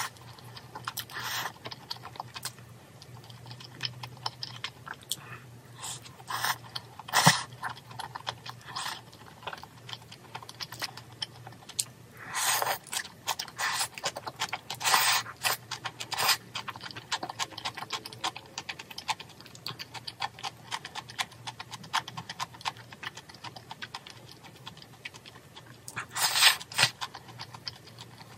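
Close-up eating sounds of braised chicken with thick udon noodles: rapid, wet clicks of chewing throughout, with a few longer, louder slurps of noodles about halfway through and near the end.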